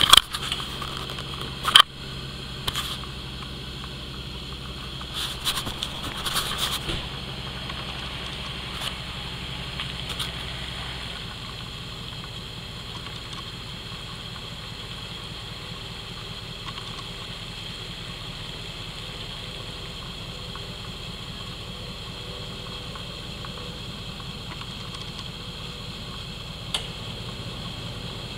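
Dodge Ram pickup engine idling: a steady low hum that turns into a rougher, even rumble about eleven seconds in. A sharp knock comes just under two seconds in, and a few brief rustling noises follow a few seconds later.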